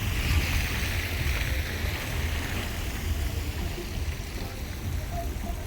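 Wind buffeting a phone's microphone outdoors, a steady low rumble, with a hissing rush in the first two or three seconds that fades away.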